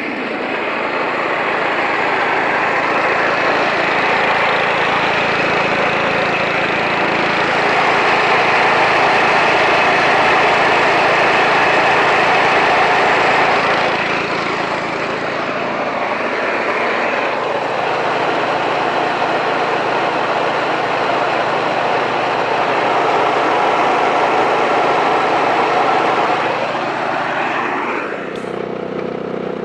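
Bolens 1050 garden tractor's engine running steadily while mowing, easing off briefly about halfway through. Near the end it winds down to a lower, steadier note.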